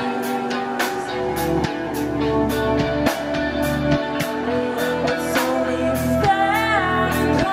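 Live rock band playing: two distorted electric guitars, electric bass and a drum kit, with steady drum strikes. Near the end a wavering, bending note rises above the mix.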